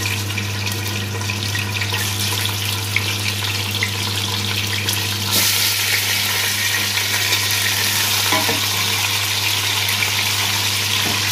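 Raw chicken pieces sizzling in hot oil with fried garlic in a steel pot, turned with a wooden spoon. The sizzle grows louder about five seconds in as more pieces go in, over a steady low hum.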